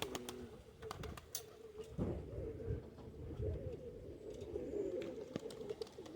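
Domestic pouter pigeons (buchones) cooing, several low coos overlapping, with a few light clicks.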